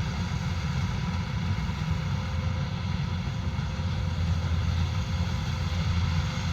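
Kubota combine harvester running steadily while harvesting rice, a deep even engine drone with no breaks or knocks.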